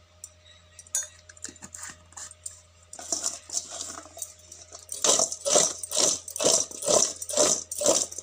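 Raw green mango slices being mixed by hand in a steel bowl to coat them with salt and turmeric. A few scattered clicks give way to rustling and clattering against the bowl. From about five seconds in this settles into a steady rhythm of about two strokes a second.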